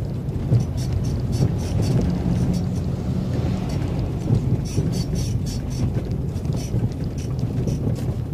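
Vehicle engine running steadily with low road rumble, heard from inside the cabin while driving over a rough dirt road, with scattered rattles and clicks.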